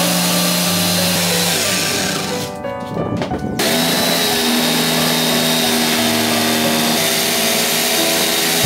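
Corded jigsaw running and cutting through a thick wooden plank, stopping about two and a half seconds in and starting again a second later. Background music plays underneath.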